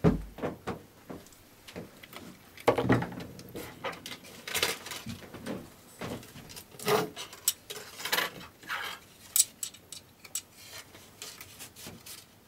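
An Allen key and hands working on a 3D printer's extruder as it is screwed onto its carriage: irregular small metallic clicks and taps.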